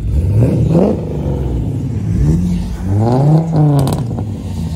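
Lowered Volkswagen Golf hatchback's engine revving as the car pulls away. The pitch rises and falls twice: a short rev about half a second in, then a longer, louder rev a bit past halfway, with a brief crackle at its peak.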